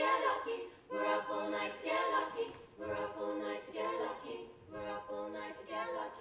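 All-female a cappella group singing in close harmony, with no instruments, in short chord blocks of about a second each separated by brief breaks; the singing cuts off sharply at the end.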